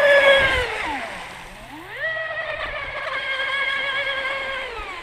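Delta Force 29 RC boat's brushless Rocket 3674 motor whining at speed on a close pass, loudest at first. Its pitch falls about a second in, climbs again around two seconds, holds high, and drops off near the end.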